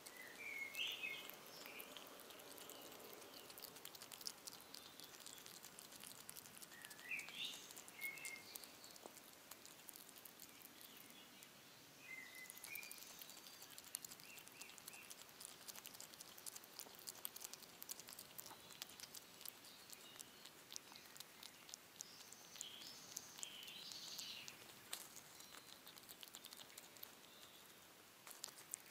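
Faint, dense patter of small clicks and smacks from a European hedgehog chewing cheese. A few short bird chirps sound in the background, about a second in, around seven seconds in, and again near the end.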